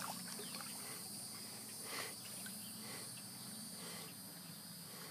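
Quiet backyard pool ambience: a steady high insect drone with a faint low hum, and small water splashes about two seconds in as a child shifts on the pool steps.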